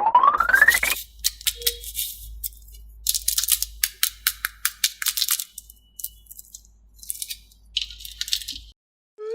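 A rising whistle-like glide in the first second, then repeated short bursts of dry crackling and rattling clicks with pauses between them.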